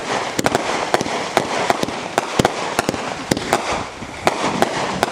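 Aerial firework shells bursting overhead: an irregular string of sharp bangs, about three a second, over a continuous crackle.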